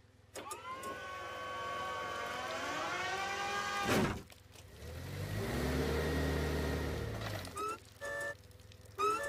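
Cartoon forklift engine running and revving with a whine that rises and falls in pitch. About four seconds in comes a sharp hit as the forks stab into the whale, then a deep low groan, and near the end short horn-like beeps.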